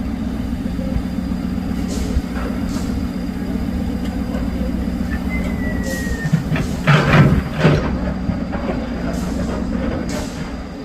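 JCB backhoe loader's diesel engine running steadily under digging work, with a few louder knocks and scrapes about seven seconds in.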